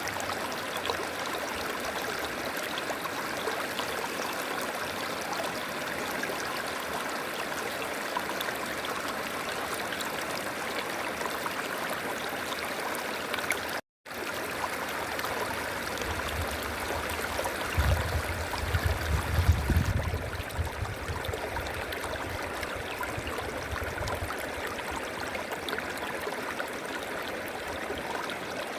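A river flowing steadily, its water rushing and gurgling. About halfway through the sound cuts out for an instant and comes straight back, and a little later a low rumble swells up under the water for a few seconds.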